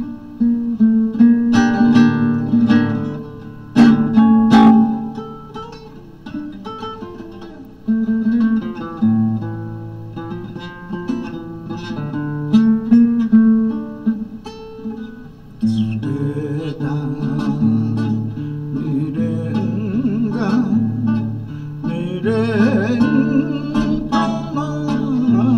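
Nylon-string classical guitar played fingerstyle, a slow melody over low bass notes; the playing gets fuller and busier about two-thirds of the way through.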